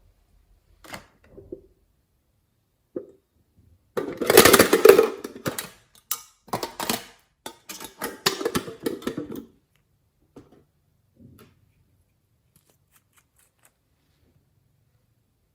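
Slime being squished and kneaded by hand, giving wet squelching with crackling, popping clicks in irregular bursts, loudest from about four seconds in to nearly ten, then a few faint squishes.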